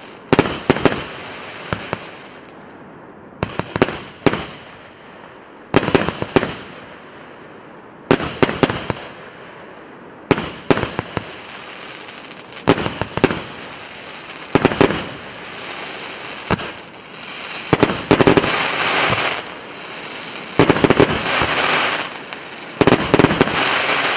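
'Sea Surf' (Морской прибой) consumer fireworks battery firing: volleys of sharp bangs about every two seconds, each trailing off in crackling. The volleys come thicker and crackle longer near the end.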